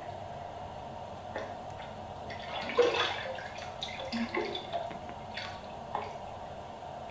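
Electronic soundscape of scattered drip-like plinks and clicks over a steady hum, from an algorithmic computer composition played through speakers; a sharper click comes nearly three seconds in.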